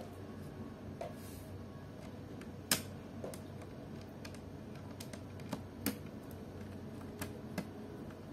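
Scattered small sharp clicks and taps of plastic as fingers and a screwdriver work at the battery bay of a Samsung NP300E4X laptop's bottom case; the loudest click comes nearly three seconds in, and about half a dozen fainter ones follow.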